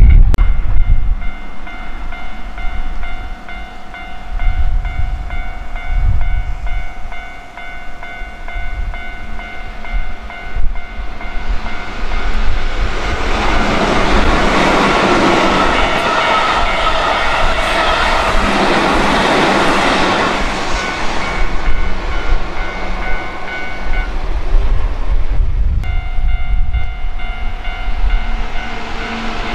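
A Keihan 8000-series electric train approaching and running past close by, its sound building into a loud rush of wheels and running gear for about eight seconds midway, then fading. A steady high tone sounds underneath, and near the end a second train, a Keihan 6000-series, is heard approaching.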